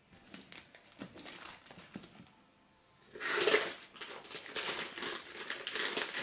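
Craft materials rustling and crinkling as they are handled, with light taps and clicks; the loudest rustle comes about three seconds in, after a brief quiet moment.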